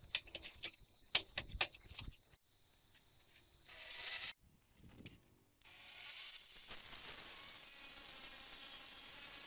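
Sharp clicks and knocks of a quick-release bar clamp being set and tightened on a plank. A little past halfway an angle grinder on a sliding guide starts and runs steadily with a high hiss and whine.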